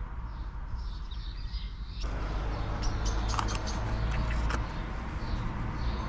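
Outdoor ambience: a steady low rumble with small birds chirping faintly. About two seconds in the background noise rises abruptly, and a few sharp clicks follow.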